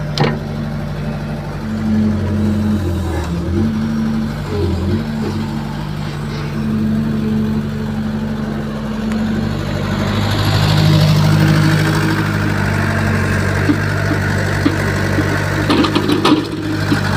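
Caterpillar E70B hydraulic excavator's diesel engine running steadily while it digs, its pitch dipping and recovering as the hydraulics take load, and it runs louder for a few seconds in the middle. A quick run of sharp knocks comes near the end.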